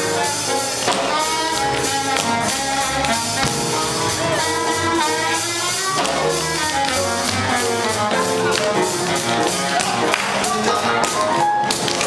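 A live jazz big band playing, with saxophones and brass carrying the melody over a drum kit.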